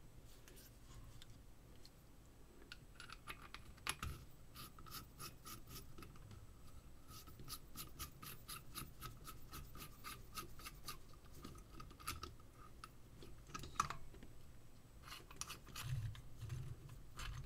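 Threads of a metal flashlight tube and collar being screwed together by hand, making a fast run of faint, even clicks and scrapes, with a couple of louder knocks as the parts are handled.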